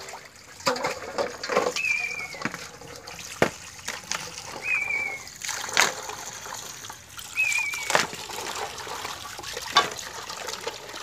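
Tap water pouring and splashing into an aluminium basin as hands rinse tamarind pods in it, with sloshing and short splashes. A short high wavering call repeats about every three seconds.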